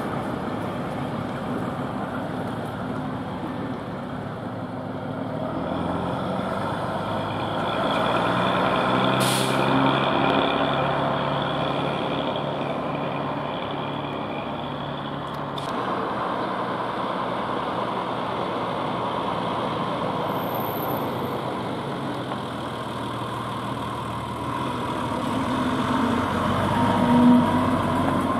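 Vintage buses' engines running as they pull away, the pitch rising as one accelerates. There is a sharp air-brake hiss about nine seconds in and a fainter one a few seconds later. Near the end, another bus's engine comes up close and loud.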